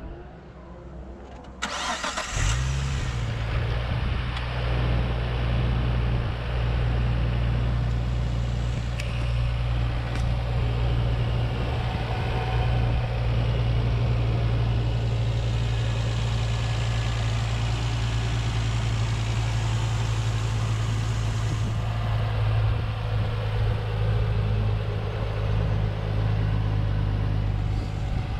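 Nissan Skyline R34's RB25DET NEO 2.5-litre turbocharged straight-six cranked on the starter briefly, about two seconds in, then catching and settling into a steady idle.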